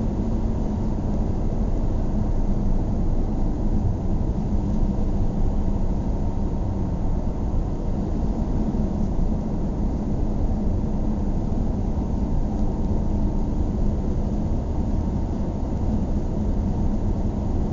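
Steady road and engine noise heard from inside a moving car's cabin: a constant low rumble with a faint engine hum.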